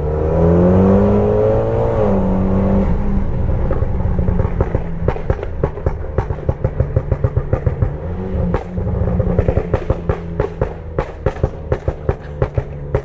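Mitsubishi Lancer Evolution X FQ300's tuned turbocharged 2.0-litre four-cylinder revving up and dropping back, followed by a rapid, irregular string of exhaust pops and crackles on the overrun. It revs again briefly about eight seconds in.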